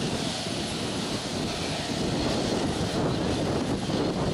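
Aircraft engine running on the airport apron, a steady, even noise.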